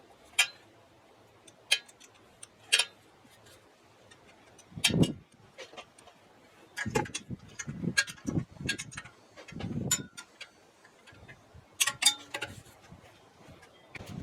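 Scattered sharp clicks and knocks, with a run of dull thuds in the middle, typical of parts and tools being handled during car assembly work.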